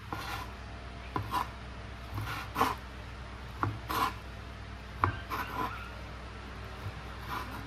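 A cleaver slicing bologna into strips on a cutting board: repeated cuts about once a second, each a sharp knock of the blade on the board with a brief scrape.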